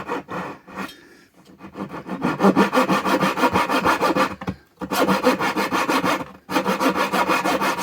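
Thin-kerf hand saw cutting into wood in quick, even rasping strokes, pausing briefly about a second in and twice more later. The saw is cutting the sides of a notch in a breadboard end, down to the tongue.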